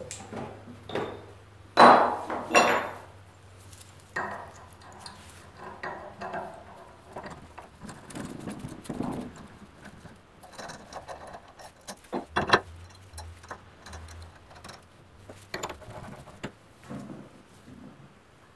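Steel bearing puller parts clinking and clanking as they are handled and fitted together: a few sharp metal clanks about two seconds in, then lighter clicks and rattles of rods, nuts and bolts, with another sharp clank past the middle.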